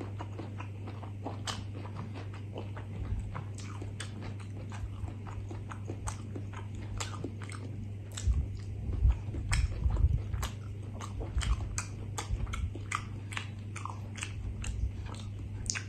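Close-miked chewing of rice in coconut-chili gravy eaten by hand, with many small wet mouth clicks. There are a few low bumps about eight to eleven seconds in.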